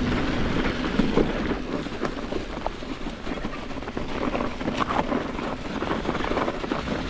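Mountain bike rolling over a leaf-covered dirt singletrack on Maxxis Forekaster tyres: steady tyre and wind noise, with a few short clicks and rattles from the bike over bumps.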